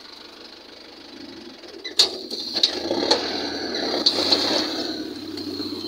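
Tractor-mounted disc plough working dry soil: a sharp metallic clank about two seconds in, then a few seconds of crunching and rattling with more clanks, over the low hum of the tractor engine.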